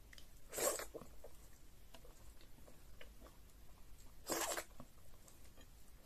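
Close-miked eating sounds: two short, loud slurps as morsels of fufu dipped in egusi soup are sucked into the mouth from the fingers, about half a second in and again past four seconds. Faint chewing and lip clicks come between them.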